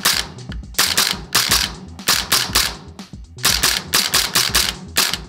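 APFG MPX gas blowback airsoft rifle firing quick strings of shots, several a second, each a sharp crack with the bolt cycling, with short pauses between strings.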